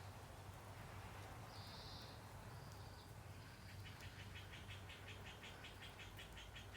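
Faint bird call: a short high note, then from about halfway through a rapid, even series of short high notes, over a steady low hum.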